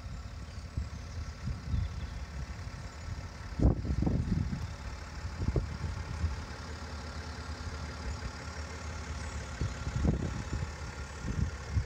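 Uneven low rumble of wind buffeting the microphone, surging louder about four seconds in and again near ten seconds, over a faint steady hum.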